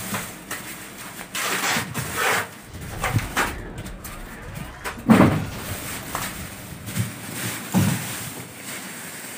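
Plastic wrapping rustling and crinkling as it is pulled off a large speaker cabinet in its cardboard box, with two dull thumps about five and eight seconds in.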